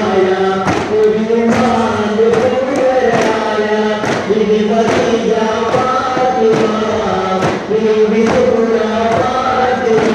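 A group of men chanting a devotional song in unison, with daf frame drums struck in a steady beat under the voices: daff muttu.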